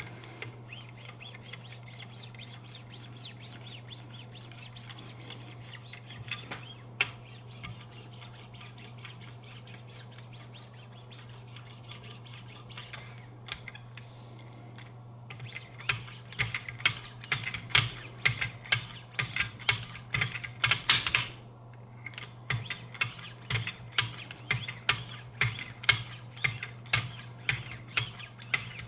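Wicked Edge sharpening arms with 3-micron lapping film stroking along a knife blade's edge. The strokes are faint at first; from about halfway in they come regularly, about two a second, with a short pause near the end of the first run. A steady low hum sits underneath.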